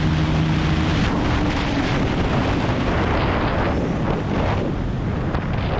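Heavy wind rush over the microphone on a Bajaj Pulsar NS200 BS6 near 140 km/h. The single-cylinder engine's steady high-rev drone dips slightly and fades out in the first two seconds as the bike slows, leaving mostly wind.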